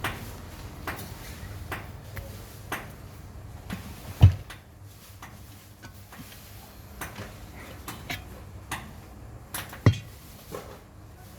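Scattered metallic clicks and light taps of tools and metal parts being handled during a water pump bearing and seal repair, with two louder knocks about four seconds in and near the end.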